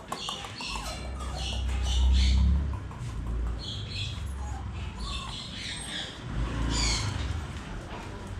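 Phu Quoc Ridgeback puppies giving short, high squeaks and whines as they play. A low rumble comes twice, loudest about two seconds in and again near the end.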